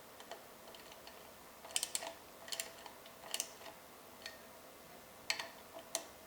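Ratcheting torque wrench ticking in short groups of a few clicks as the stem's handlebar clamp bolts are snugged down crosswise; the wrench has not yet reached its 5.5 Nm setting.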